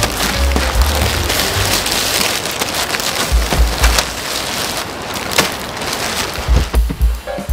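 Plastic packaging crinkling and rustling as a white poly mailer is opened and clear plastic bags are pulled out and handled, a dense, irregular crackle throughout.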